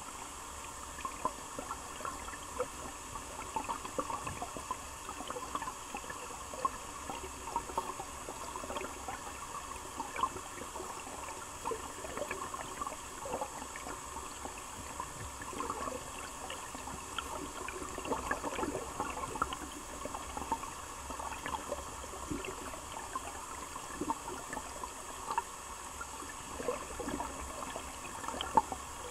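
Flowing river water, running steadily with many small irregular ticks and pops.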